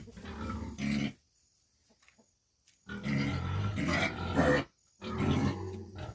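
An animal calling in low, rough sounds, in three bouts: one in about the first second, a longer one about three seconds in, and a shorter one about five seconds in.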